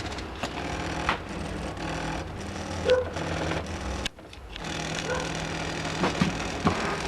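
Stepper motors of a homemade two-and-a-half-axis CNC plotter built from electronic scrap, moving the axes with a steady hum and scattered clicks. The motors stop for about half a second a little after four seconds in, then start again.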